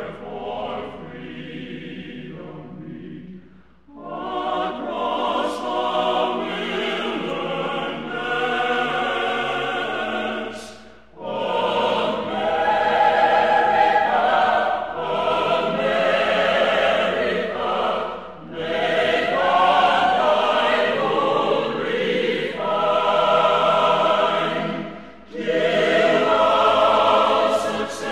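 Background music: a choir singing in long held phrases, with short breaks between phrases about every seven seconds.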